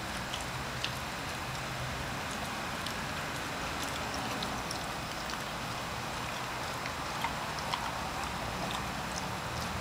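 Steady outdoor background hiss with a faint low hum and a few faint, scattered clicks.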